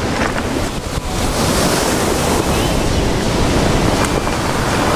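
Ocean surf breaking and washing up over a beach of rounded stones, the wash swelling about a second in, with wind buffeting the microphone.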